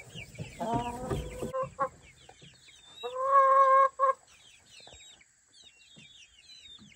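A flock of young chicks peeping throughout, with an adult chicken calling: a short call about a second in, then a loud, drawn-out call about three seconds in, lasting about a second, with a short note right after it.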